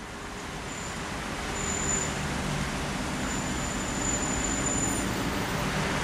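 DB Class 426 electric multiple unit approaching and running onto a bridge. A steady rumble grows over the first couple of seconds and then holds, with a thin high tone coming and going.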